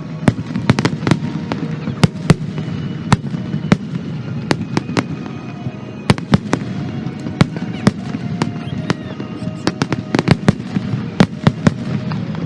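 Aerial fireworks going off in quick, irregular succession: a string of sharp bangs and cracks, several in some seconds, with a cluster of them near the end.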